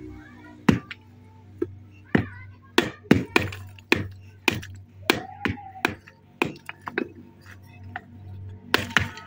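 Hand hammers striking fired clay bricks, breaking them by hand into brick ballast: irregular sharp knocks, about two a second, from two men working at once.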